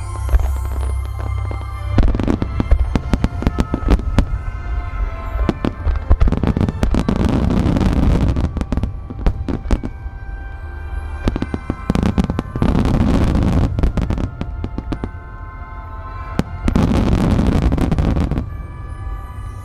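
Fireworks display: aerial shells bursting in rapid volleys from about two seconds in, with three long spells of dense crackling. Music with sustained tones plays throughout.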